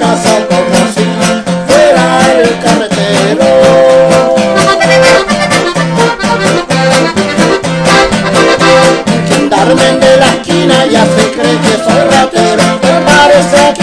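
Ranchera played on a piano accordion and a strummed acoustic guitar, the accordion carrying the melody over a steady strummed beat.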